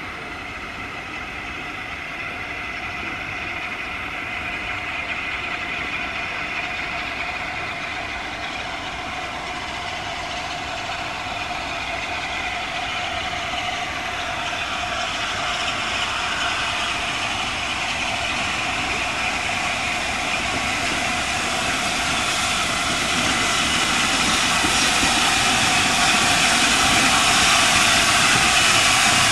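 An LNER A4 Pacific three-cylinder steam locomotive approaching out of sight and then into view, its sound growing steadily louder as it nears.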